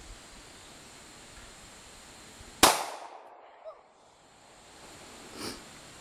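A single shot from a Hi-Point C-9 9mm pistol, about two and a half seconds in, with a brief tail after it.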